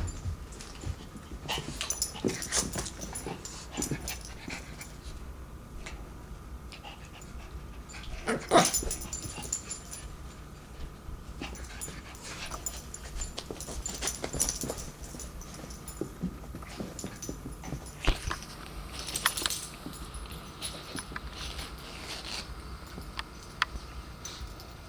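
A pet dog close to the microphone makes small sounds amid scattered clicks and rustles, with one louder short call about eight seconds in.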